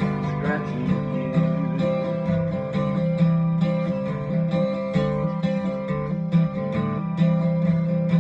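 Acoustic guitar strumming steady chords in the instrumental ending of a country song, with no singing.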